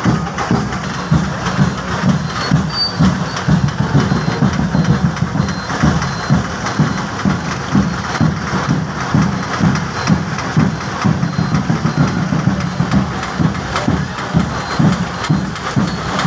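An engine idling, a steady low running sound with a regular pulse about three times a second.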